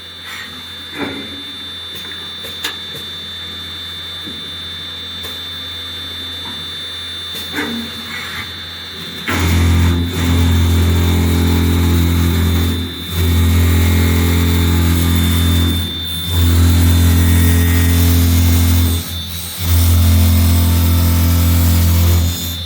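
CNC wood-drilling machine boring holes in a wooden column. A steady machine hum with a high whine and a few clicks, then, about nine seconds in, the machine turns loud in four stretches of about three seconds each, with brief pauses between.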